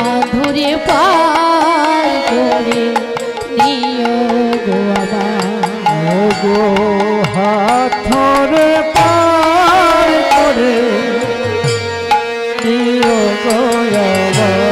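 Bengali kirtan ensemble music: drum strokes keeping a beat under a melody that glides and wavers in pitch, over steady held tones.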